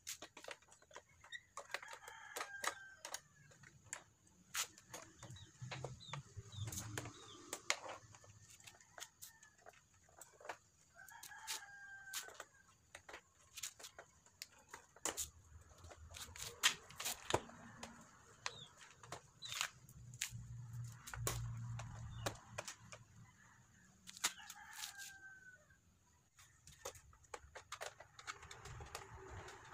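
A rooster crowing about four times, each crow roughly a second long, over scattered sharp clicks and knocks of a plastic motorcycle side cover being handled and pressed into place.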